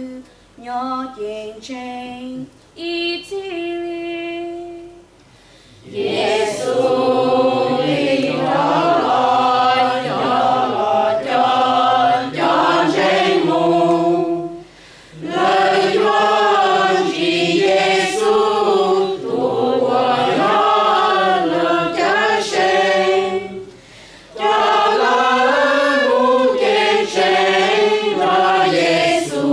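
Mixed choir of men and women singing a hymn in Hmong, with no instruments heard. A single voice sings a short phrase first, then the full choir comes in about six seconds in and sings in long phrases, breaking briefly for breath twice.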